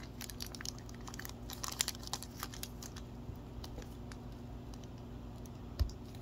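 Clear plastic packaging crinkling and ticking in irregular bursts as fingers pick and peel it off a small figure. It is busiest in the first half, with a single soft knock near the end.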